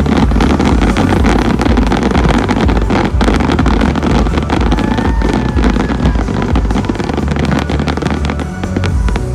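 Loud electronic dance music from a sound system, with fireworks banging and crackling through it.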